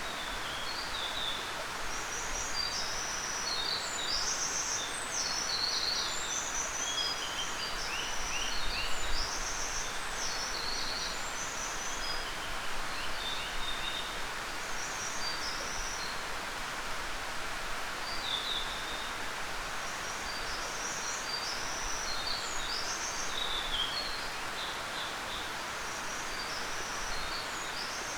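Steady rush of a mountain waterfall, with songbirds singing quick, high chirping phrases over it that pause for a few seconds around the middle.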